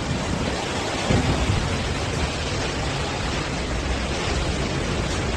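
Steady storm noise of heavy typhoon rain and wind, an even hiss and rumble with no distinct events.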